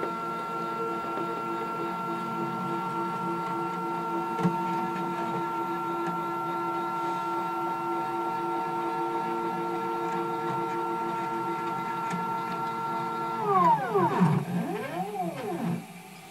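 Stepper motors of a home-built wooden CNC router driving the axes along acme lead screws on a return-to-origin move: a steady whine that holds one pitch, then drops in pitch as the motors slow about 13 seconds in, followed by a couple of short rising-and-falling whines before it stops near the end.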